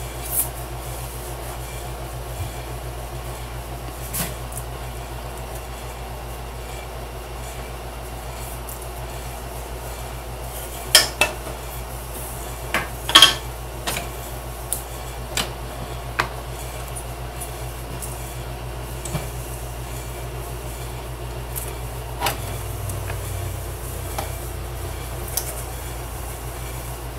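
Scattered light metal clicks and taps from handling a scroll saw's blade and blade clamp while threading the blade through a small drilled hole, the sharpest few about halfway through. A steady low hum runs underneath.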